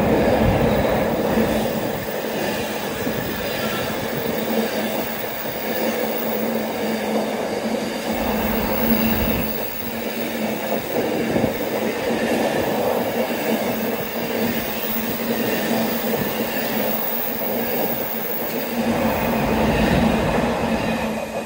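Long, heavy freight train passing, its wagons rolling by on the rails in a steady, continuous rumble.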